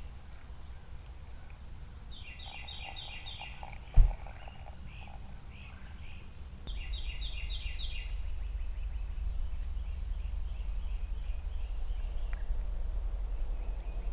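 Outdoor animal calls: two runs of quick repeated chirps, about two and seven seconds in, over a steady high-pitched hum. There is a single loud thump about four seconds in, and a low rumbling noise that grows louder after about seven seconds.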